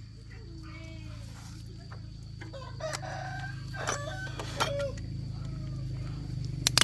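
A rooster crowing and chickens clucking, several pitched calls rising and falling, over a steady low hum. Two sharp clicks near the end.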